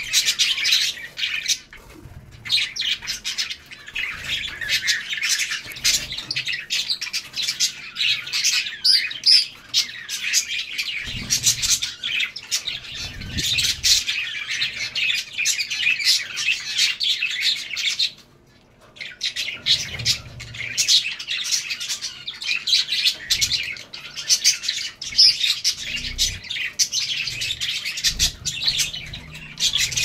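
A flock of zebra finches calling together: a dense, continuous chatter of short, high chirps, with a brief lull a little past halfway.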